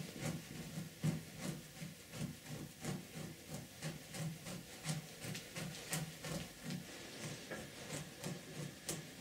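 A knife blade scraping fat and membrane off an inside-out muskrat pelt stretched on a wooden form, in repeated short strokes about two to three a second.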